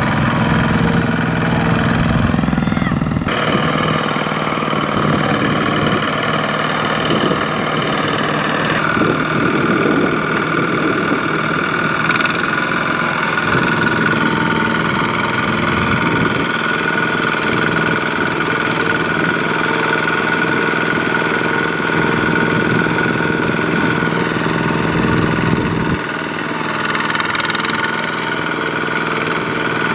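Tractor diesel engine running steadily, its note shifting a few times, at about three, nine and twenty-six seconds in.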